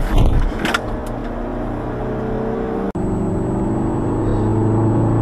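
Car engine and road noise recorded from inside a vehicle by a dashcam, with several sharp noisy bursts in the first second. The sound cuts out briefly about three seconds in, then a steady engine drone rising slightly in pitch as the vehicle accelerates.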